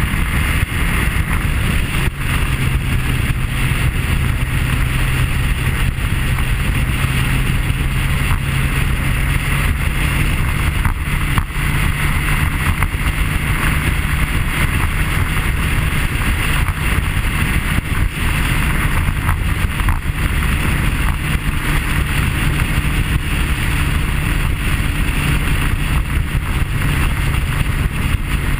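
BMW K1300S motorcycle's inline-four engine running at a steady cruise, mixed with heavy wind rush over the camera's microphone.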